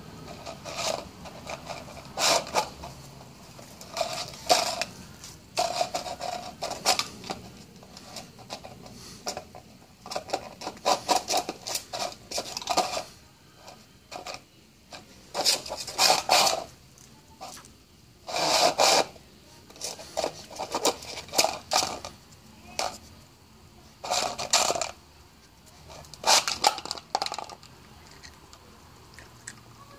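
Plastic cups scraping and clattering over concrete paving stones as a Cairn terrier puppy shoves them with nose and paws, in irregular bursts every second or two that stop near the end.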